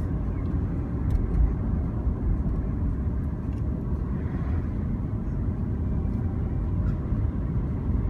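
Steady low rumble of a car driving, heard from inside the cabin: tyres on the road and the engine running at a steady cruise.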